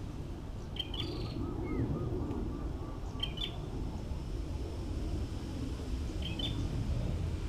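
A bird calling outdoors, a short high two-note chirp repeated about every two to three seconds, over a steady low background rumble.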